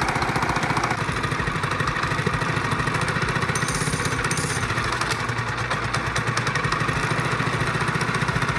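Small single-cylinder Predator engine on a drift trike idling steadily while its carburetor idle setting is adjusted with a screwdriver. Its tone changes about a second in.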